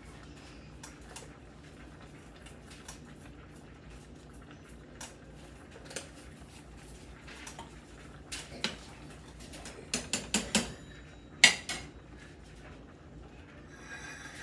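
Dishes and a small spice jar handled on a granite kitchen counter: scattered light clicks and taps, then a quick run of sharper clinks about ten seconds in, and one loud clink a moment later.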